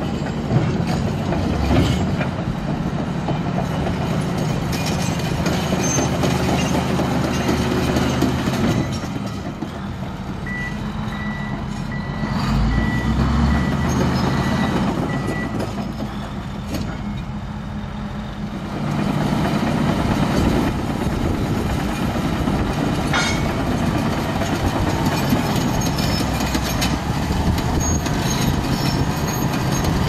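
Komatsu D155AX crawler bulldozer's six-cylinder diesel engine running steadily as the machine manoeuvres, easing off for about ten seconds in the middle and then pulling harder again. While it is eased off, a row of short, high beeps from its backup alarm sounds for about five seconds.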